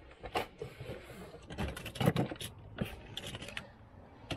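Plastic and die-cast toy vehicles clicking and clattering against each other as hands rummage through a cardboard box of them: an irregular run of short, sharp clicks and knocks.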